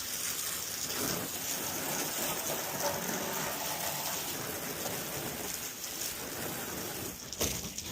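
Water spraying from a hose onto a truck to rinse it, a steady splashing hiss that changes abruptly about seven seconds in.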